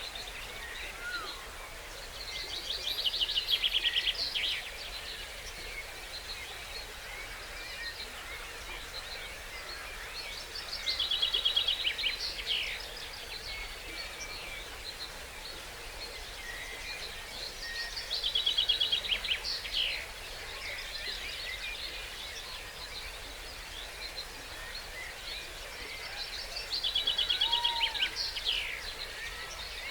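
A songbird singing the same short trilled phrase four times, about every eight seconds, each phrase a run of quick repeated notes ending in a brief flourish. Fainter calls of other birds and a steady hiss of the stream lie underneath.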